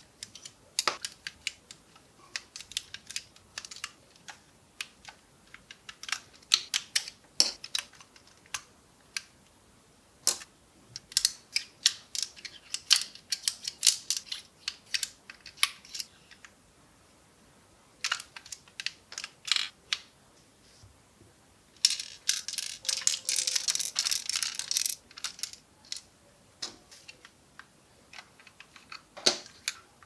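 LEGO plastic bricks and parts clicking and clacking as they are handled: pieces pushed through holes, pulled out and set down on a hard table in quick, irregular clicks. A denser run of rapid clatter lasts about three seconds, about three-quarters of the way through.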